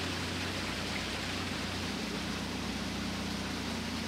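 A small cruiser's engine running steadily under way: an even low hum with a constant hiss of wind and water over it.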